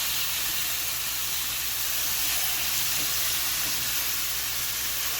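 Chicken breasts frying in butter in a pan, a steady sizzle.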